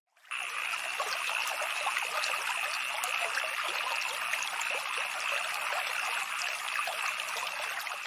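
Water trickling and lapping in a steady, fine crackling wash that fades out near the end.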